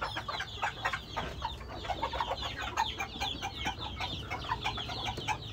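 Chickens clucking, a dense run of short calls.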